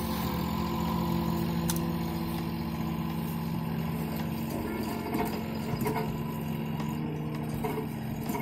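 A John Deere compact tractor's diesel engine running steadily while it pulls a box blade over the fill dirt of a foundation pad, with a few faint clicks and knocks in the second half.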